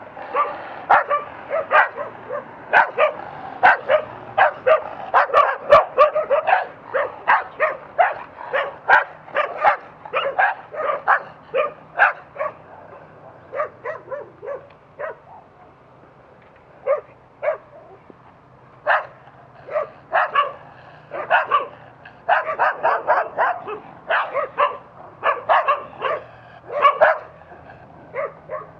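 Street dogs barking at a passing bicycle in rapid, sharp barks, chasing it. The barking thins out about halfway through and picks up again near the end.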